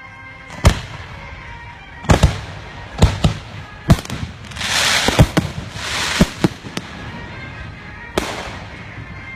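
Fireworks display: about a dozen sharp bangs of bursting shells at uneven intervals, with a crackling hiss from about four to six seconds in.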